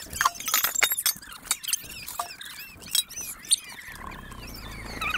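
Many quick high chirps and peeps from small birds, with a few sharp knocks and clatters of cookware being handled.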